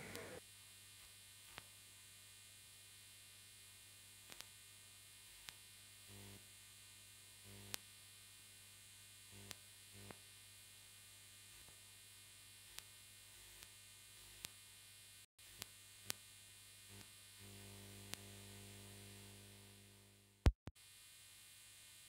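Near silence: a faint steady electrical hum with scattered soft clicks, and one sharper click near the end.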